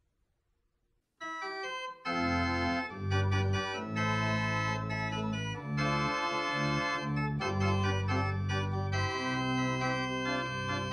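Organ playing the introduction to a hymn in held chords over a bass line, starting about a second in.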